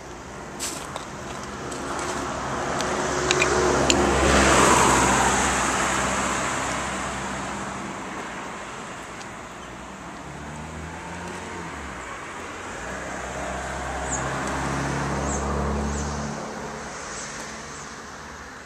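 Cars passing on the street: one swells to its loudest about four seconds in and fades away, and a second passes more softly about fifteen seconds in.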